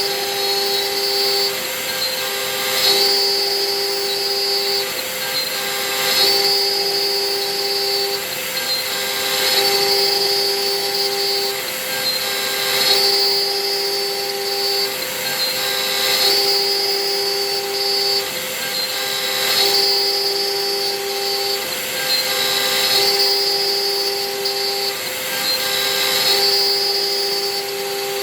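Hobby CNC milling machine running a job: a steady spindle tone over a noisy hiss, with the axis drive motors whining in short pitched runs that start and stop in a cycle repeating about every three seconds.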